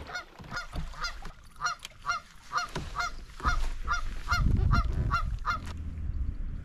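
Geese honking in a steady series, about two honks a second, stopping shortly before the end. Under it is a low rumble that is loudest a little past the middle.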